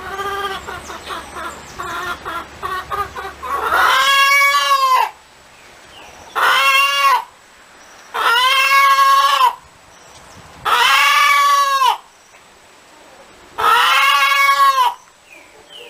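Hen clucking in quick short notes for about four seconds, then giving five long, drawn-out calls at intervals of about two seconds.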